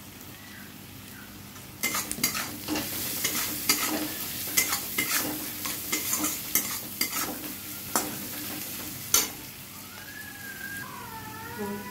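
Sliced onions sizzling in hot oil in a kadai while a metal spatula stirs them, scraping and tapping against the pan from about two seconds in until about nine seconds in; the sizzle goes on underneath throughout.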